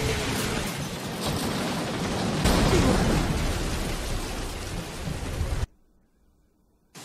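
Heavy rain pouring, with low rumbling and a louder surge about two and a half seconds in; it cuts off abruptly near the end, leaving near silence.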